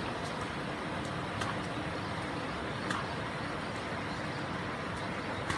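Steady outdoor background noise with a few faint clicks.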